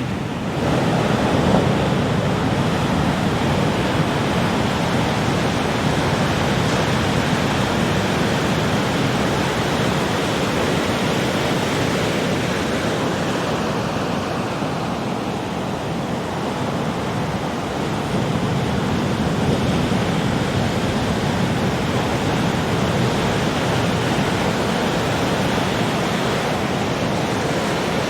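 Sea waves breaking on a beach: a continuous rushing surf that swells and eases slowly.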